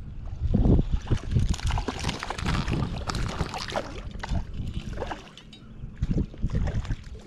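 Wind buffeting the microphone in irregular gusts, with a louder rushing gust in the first half that drops away briefly about five seconds in.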